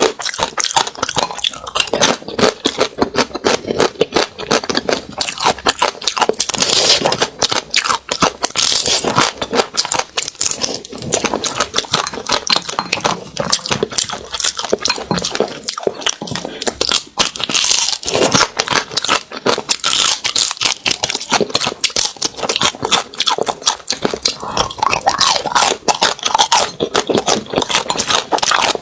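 Close-miked eating of soy-sauce-marinated crab: dense, irregular crunching, crackling and chewing as the shell and meat are bitten and chewed.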